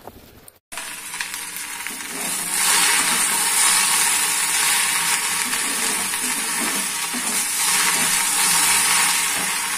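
Chopped okra sizzling in hot oil in a kadhai while a spatula stirs and turns it. The hiss starts just under a second in and gets louder about two and a half seconds in.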